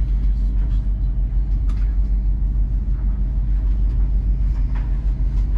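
Steady low rumble inside the carriage of a Class 801 Azuma electric train as it rolls along the platform on arrival, with faint clicks over it.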